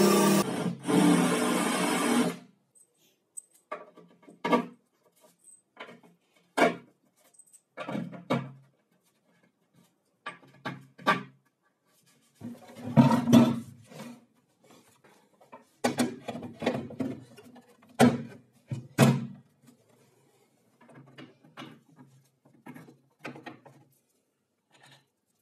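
Cordless drill driving a screw into a particleboard cabinet top, its motor running steadily and stopping about two seconds in. After that come irregular rubs, scrapes and knocks of wood and hardware being handled.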